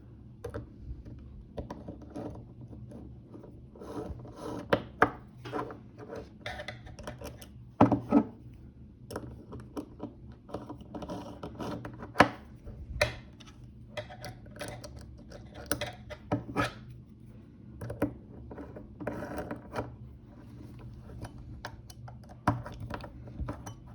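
M3 screws being driven by hand into the parts of a shaft coupling: irregular scraping, rubbing and clicking of the tool, screws and parts, over a low steady hum.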